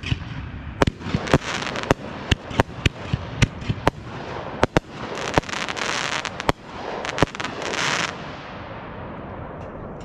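Fireworks going off: a rapid string of sharp bangs mixed with bursts of high hiss, dying away after about eight seconds.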